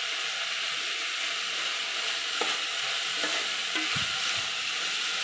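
Chopped flat beans sizzling steadily in hot oil in a metal pot while a metal spoon stirs in turmeric, with a few short knocks and scrapes of the spoon against the pot in the middle seconds.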